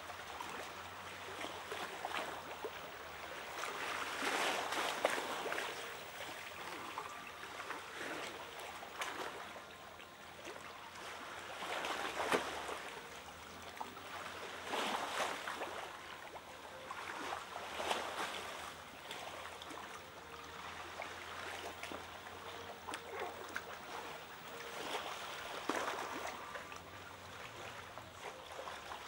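Water lapping and sloshing in a rocky seal pool as small waves wash through, swelling louder every few seconds.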